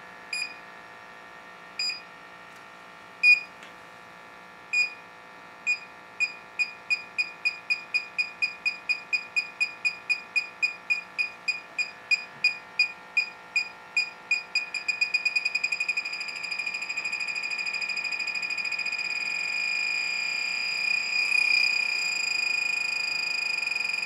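Handheld electronic combustible-gas leak detector beeping. The high beeps come singly and slowly at first, then speed up from about six seconds in and run together into one continuous tone around the middle, which holds to the end. The quickening ticks and solid tone are the detector signalling gas at the threaded pipe joints, though pipe dope can also set such detectors off.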